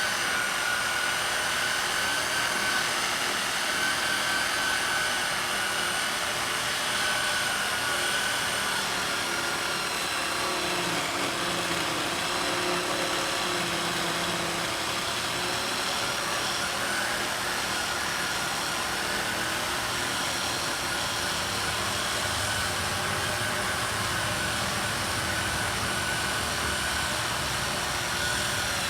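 Virginia Abrasives VA CD3 three-speed electric core drill running steadily, its motor giving a high whine that wavers slightly in pitch as the bit works.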